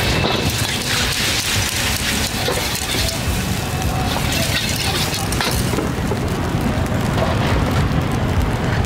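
Street-food stall ambience: a steady crackling sizzle of food cooking, with people talking in the background. The sizzle eases about six seconds in.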